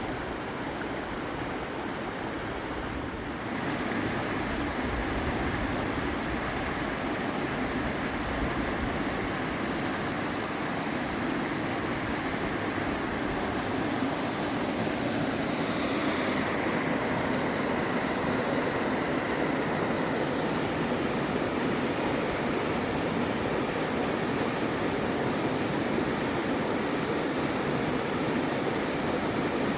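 Steady rush of mountain stream water tumbling over rocks. It gets a little louder about three seconds in, and the tone of the water changes again about halfway through.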